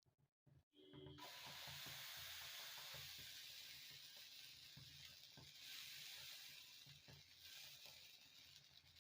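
Set dosa batter sizzling on a hot tawa: a hiss that starts suddenly about a second in as the batter hits the griddle, then slowly fades.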